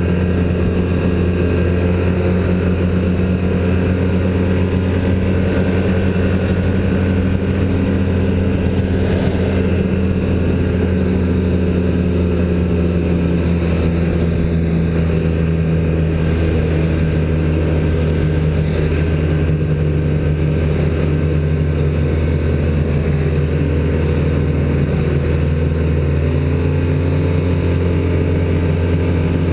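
Snowmobile engine running steadily at cruising speed, its drone holding an even pitch that eases slightly lower near the end.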